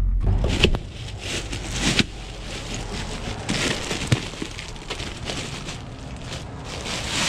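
Plastic bag of ice crinkling and rustling as it is handled and opened, with ice cubes clicking and shifting inside; near the end the ice starts tumbling out into a bucket.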